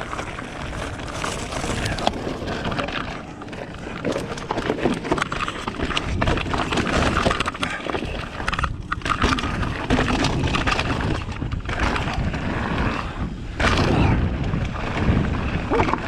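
Mountain bike being ridden fast: wind buffeting the action-camera microphone over tyres rolling on the ground and the bike rattling over bumps, in uneven swells and knocks.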